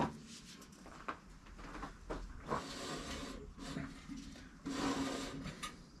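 The band wheel of a Woodland Mills HM130MAX bandsaw mill being turned by hand, with a few sharp clicks and two rough rubbing, grinding stretches, each about a second long, about halfway through and near the end. The wheel turns hard, a sign that something in the mill is binding.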